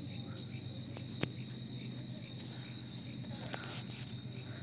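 Crickets chirping steadily in a fast, even pulse, over a constant high tone and a low hum. A faint click comes about a second in.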